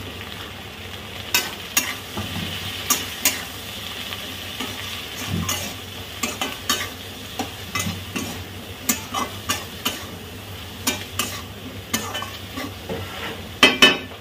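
Okra and onions sizzling in a metal kadhai while a flat metal spatula stirs them, scraping and knocking against the pan at irregular moments, one to a few times a second. A quick cluster of louder knocks comes near the end.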